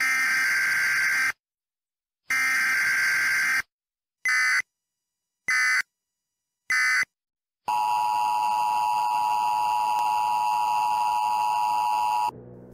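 Electronic alarm beeping: two long beeps about a second apart, then three short quick beeps, then one steady lower tone held for about four and a half seconds before it cuts off.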